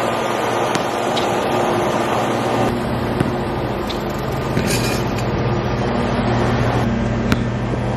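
A steady motor hum, with a basketball knocking sharply on the court or rim a few times.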